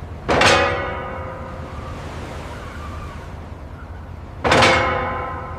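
Two loud struck hits about four seconds apart, each ringing with several tones and fading over about a second, over a steady low hum.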